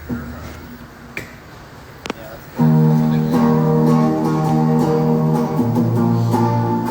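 A few faint clicks, then about two and a half seconds in a guitar comes in loud, playing held chords. The chord changes to a lower one about three seconds later.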